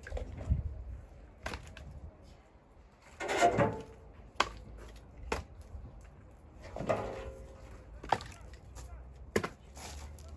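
Split firewood logs knocking against one another as they are handled and stacked: single sharp wooden knocks at uneven intervals of a second or more.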